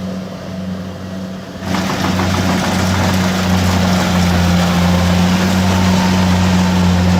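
Harvesting machine engine running at a steady speed. About a second and a half in, a loud rushing clatter of machinery joins it and the sound gets louder.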